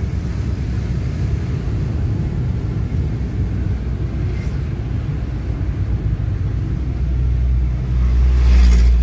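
Steady low rumble of a car driving, heard inside the cabin. It grows louder near the end as a large truck passes close by.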